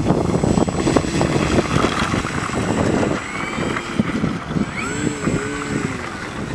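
Electric RC aerobatic plane's brushless motor and propeller (Hacker A30-14L spinning an APC 12x6E), its whine rising and then falling in pitch about two-thirds of the way through as the throttle changes, under heavy wind buffeting on the microphone.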